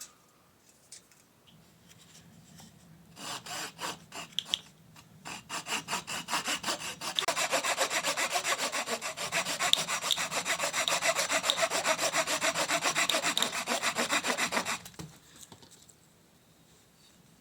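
Hand saw cutting through wood in rapid back-and-forth strokes. A few strokes start about three seconds in, then after a short pause a steady run of sawing goes on until it stops near the end.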